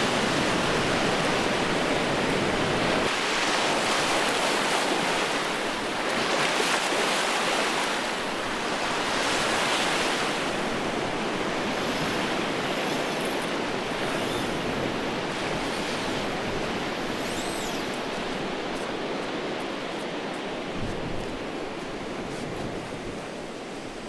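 Ocean surf washing onto a coral-sand beach: a steady rushing that swells and fades every few seconds as waves break.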